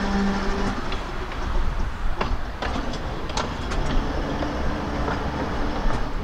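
A narrow-gauge (2 ft 9 in) electric tramcar running along its track, heard from the top deck: a steady rumble with scattered sharp clicks from the wheels on the rails. A steady hum stops just under a second in.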